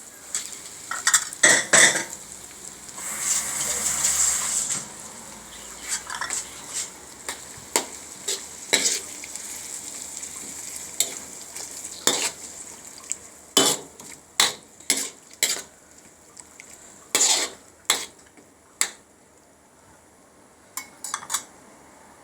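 A utensil stirring a wet mixture of coconut milk and vegetables in a cooking pan, with irregular clinks and knocks against the pan and a scraping stretch about three seconds in, over a faint sizzle. The knocks come less often near the end.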